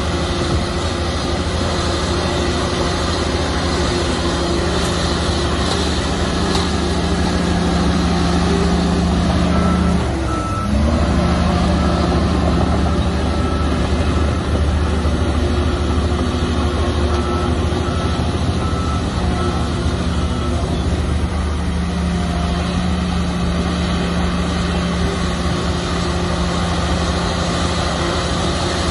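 Heavy diesel engine of a Komatsu bulldozer running steadily under load, briefly dropping and then picking back up about ten seconds in. A reversing alarm beeps in a steady rhythm for a few seconds around then, and again a little later.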